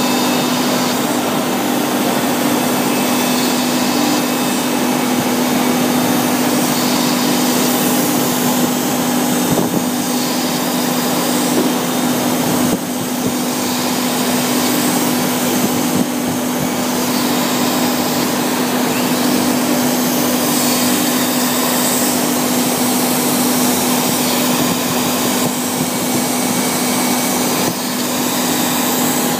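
CNC router spindle milling copper: a steady hum with a constant hiss of cutting and a few faint ticks.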